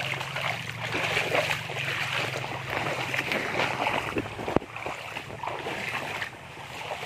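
River water running and splashing, an uneven rushing noise that rises and falls, with one sharp click about halfway through.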